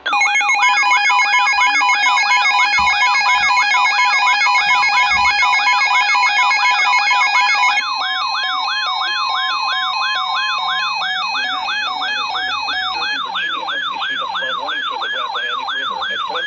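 Emergency Alert System alarm tones for an incoming flood warning: a steady two-note attention tone under a warbling siren alert that sweeps up and down about twice a second. About halfway through the steady tones change and one drops out a few seconds later, while the warbling continues.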